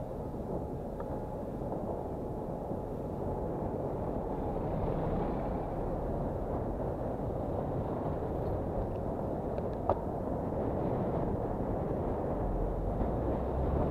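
Steady low rumble of wind on the microphone and road noise from riding a bicycle through city traffic, with a single sharp click about ten seconds in.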